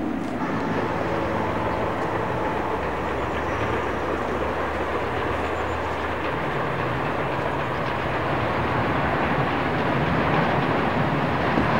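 Steam train running in the distance: a steady train noise that grows slightly louder towards the end.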